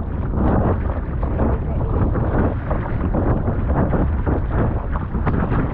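Wind buffeting the board-mounted camera's microphone in a steady rumble, over choppy water slapping against an inflatable paddleboard as a double-bladed paddle dips and strokes through it.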